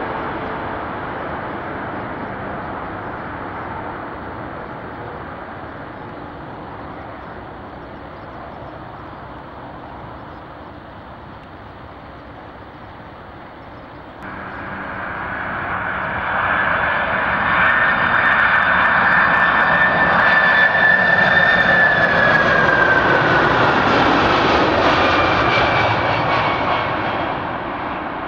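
Jet engines of large cargo airliners flying low past. A first jet's rushing noise fades away. Then, after an abrupt jump about halfway in, another grows loud with a high whine that drops in pitch as the plane goes by, and fades near the end.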